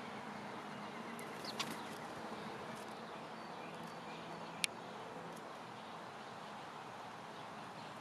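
Blue jay pecking at seeds and banana on a wooden beam: a couple of sharp beak taps on the wood, the loudest about four and a half seconds in, over a steady outdoor background hiss with faint distant bird calls.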